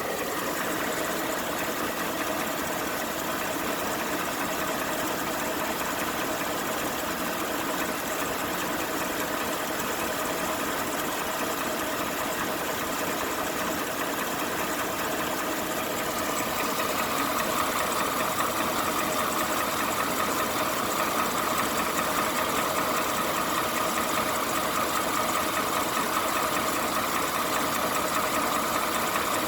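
Ford 5.0 V8 of a 2018 F-150 idling with a constant clacking tick, which the dealer puts down to the high-pressure fuel pump on top of the engine. It grows a little louder about halfway through.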